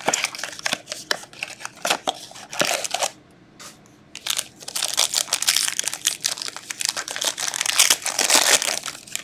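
Upper Deck SPX hockey card box being handled and opened, with clicks and rustles of cardboard, then a sealed card pack's wrapper crinkling as it is torn open. The crinkling is dense and runs from about four seconds in until near the end.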